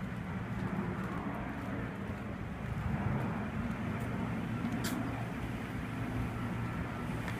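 A steady low engine-like hum, with one sharp click about five seconds in.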